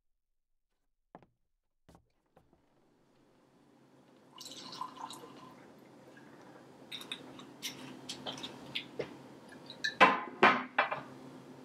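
Liquor poured from a bottle into a glass tumbler, starting about four seconds in, with small clinks as the bottle neck touches the glass. Two loud clinks of glass on glass come near the end.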